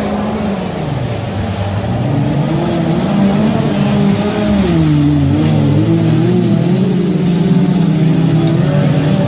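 Autocross racing cars' engines under hard acceleration. The pitch dips about a second in, then climbs and wavers up and down before holding fairly steady near the end.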